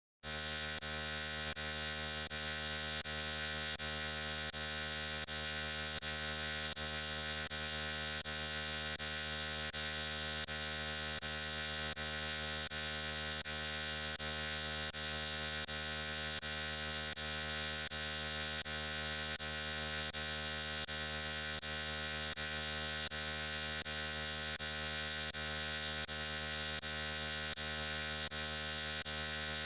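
A steady electric buzzing hum, one unchanging buzzy tone with faint regular pulses a few times a second, starting abruptly at the outset.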